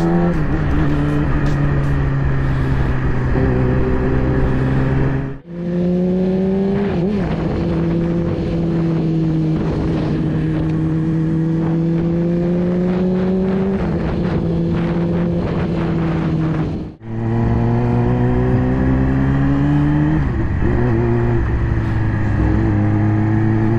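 Yamaha R6's inline-four engine through an Akrapovic full exhaust, cruising at fairly steady revs with a slight rise and fall in pitch. The sound drops out briefly twice, about five and seventeen seconds in, and the engine pitch jumps to a new level after each.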